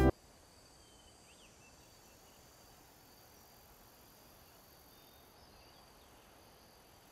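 Music cuts off abruptly right at the start, then near silence with faint, steady high-pitched insect chirring.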